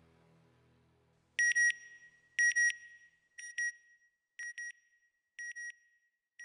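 Electronic double beeps, a bright high tone repeated about once a second six times, each pair fainter than the last like a fading echo. The end of a music bed dies away before the first beep.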